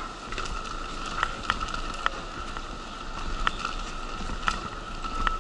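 A wheelchair rolling along a concrete station platform, its frame giving sharp irregular clicks and knocks about once a second over a steady high tone.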